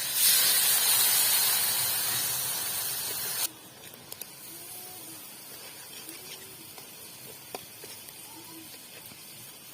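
Loud sizzling of food frying in hot oil in a pan, which cuts off abruptly a few seconds in. After that there is a quiet background with a few faint clicks and soft short chirps.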